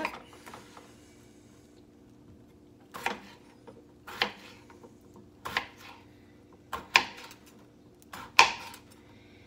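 A kitchen knife cuts through a large raw potato and strikes a plastic cutting board, about five sharp knocks a second and a quarter or so apart, starting about three seconds in.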